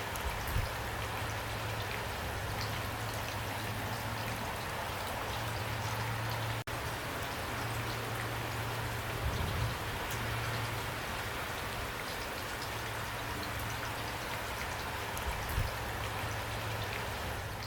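Steady rainfall with scattered drops ticking close by, over a low steady hum, with a few soft low thumps. The sound cuts out for an instant about a third of the way in.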